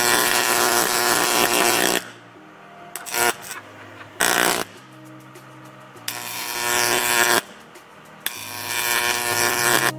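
Soft sustained background music, broken by loud bursts of harsh noise: one for the first two seconds, two short ones near the middle, and two longer ones in the second half. The source of the noise cannot be named.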